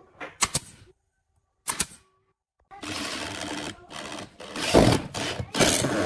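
A pneumatic brad nailer fires a few quick sharp shots into pine boards, then a corded electric drill runs in several bursts as its bit drives into the top board.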